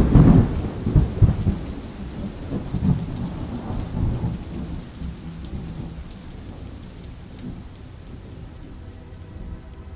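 Thunder rumbling over steady rain, with several heavy rolls in the first four seconds that fade away, leaving the rain.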